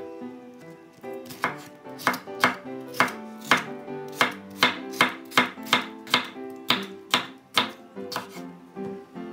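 Chef's knife slicing a red bell pepper into strips on a bamboo cutting board: a steady run of crisp strokes, about two to three a second, starting about a second and a half in.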